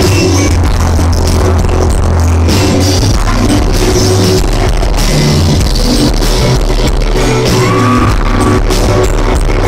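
Live band playing electric guitar and keyboards through a venue's sound system, recorded from the audience, with heavy, overloaded bass.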